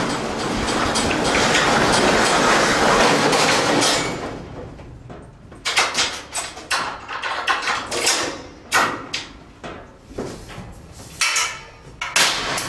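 Metal clattering inside an aluminium livestock trailer as its folding deck and latches are worked: a dense, continuous clatter for about four seconds, then a string of sharp metallic knocks and clicks.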